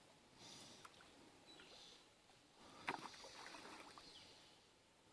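Faint splashing and lapping of river water, with one sharp tap about three seconds in.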